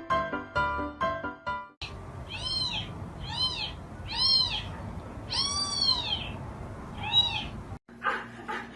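Piano music for the first two seconds. After a cut come five high cries from a pet animal, each rising and then falling in pitch, the fourth the longest.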